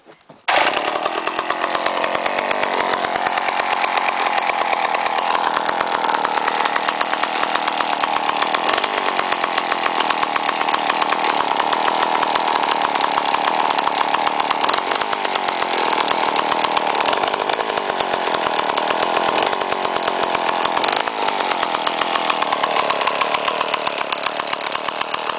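An old Pioneer NU-17 83 cc two-stroke chainsaw engine starts abruptly about half a second in and keeps running, its pitch rising and falling a few times as the throttle varies. It runs pretty decent after a carburettor rebuild with a replacement diaphragm.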